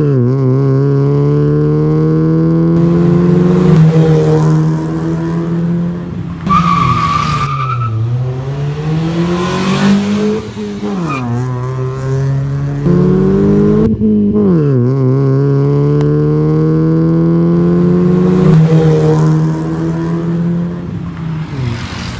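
Toyota Vios four-cylinder with an aftermarket full exhaust and intake, accelerating hard through the gears. The exhaust note climbs in each gear and drops back at each upshift, in two runs, the second starting about fourteen seconds in.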